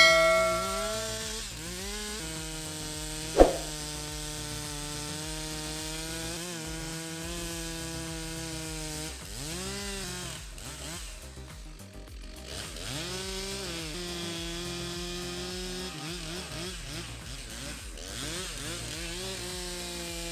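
Gas chainsaw running at high revs while cutting, its pitch dropping and climbing again several times as the throttle is eased and squeezed. There is a single sharp knock about three and a half seconds in.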